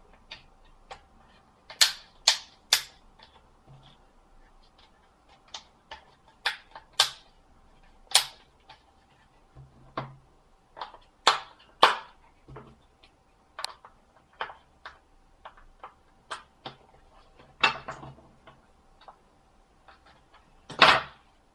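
Irregular sharp plastic clicks and taps as the parts of a Samsung B2100 phone's case are handled and snapped together, with the loudest, longest clatter near the end.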